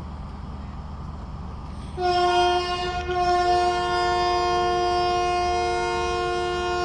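Diesel locomotive horn sounding one long multi-note blast from about two seconds in, with another note joining a second or so later, over a low steady rumble. It is the first whistle, the signal that the train is about to depart.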